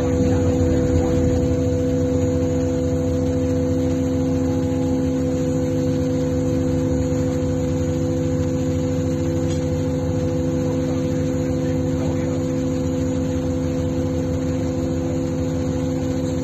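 Tugboat's engines running with a steady drone: a constant hum over a low rumble that does not change.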